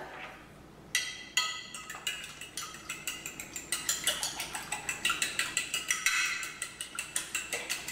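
Eggs being beaten with a fork in a glass baking dish: quick, repeated clinks of the fork against the glass as the egg wash is whisked.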